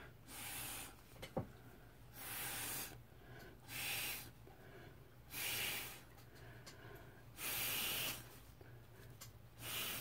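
Short puffs of breath blown through a plastic drinking straw to push wet alcohol ink across the paper: about six breathy rushes of air, each under a second long. There is a short click about a second and a half in.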